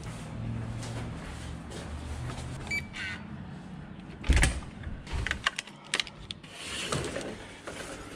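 Car sounds: a steady low hum for about three seconds, then a loud thump a little past four seconds, followed by a run of sharp clicks and knocks.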